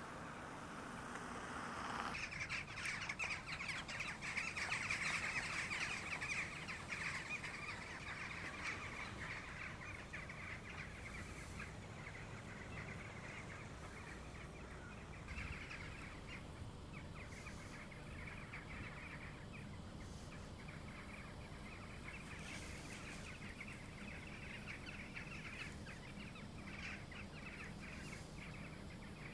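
A large flock of jackdaws calling together as they gather for their evening roost: a dense chatter of many short, overlapping calls. It swells about two seconds in, is loudest for the next several seconds, then carries on more steadily and a little softer.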